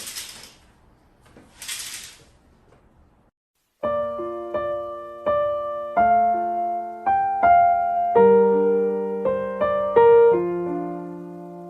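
Slow background piano music, single notes and chords that ring on, starting about four seconds in. It is preceded by two short hissing swishes.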